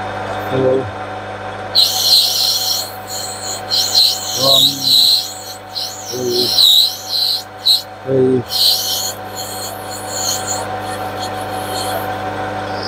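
A small metal lathe runs at steady speed with a hum, boring out the bore of a brass axle pump body in a light cut. Over it, warbling high chirps come and go from about two seconds in until about nine seconds, along with a few short low pitched notes.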